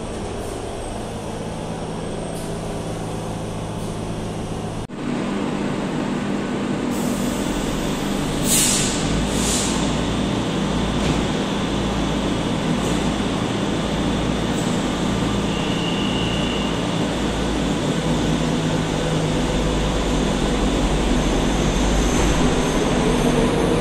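Madrid Metro Serie 5500 electric train in an underground station: the steady rumble and hum of the train at the platform, with a brief dropout about five seconds in. Two short hisses of air come around nine seconds in, and near the end a rising whine as the train pulls away.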